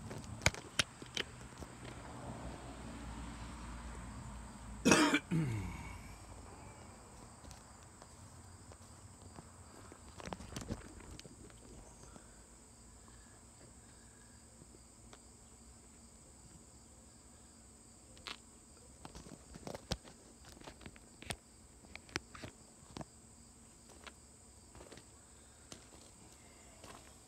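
Scattered light clicks and knocks of handling close to the microphone, with one brief loud sound about five seconds in, over a faint steady high-pitched tone.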